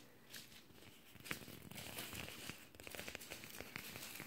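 Havanese puppy gnawing and chewing a small felt tennis ball: faint, irregular scratchy clicks and crinkles that begin about a second in.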